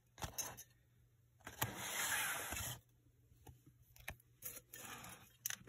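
Handling noise from a ceramic Santa planter holding an artificial Christmas pick: the plastic greenery rustles, with a longer rustle about one and a half seconds in, among scattered light knocks and clicks.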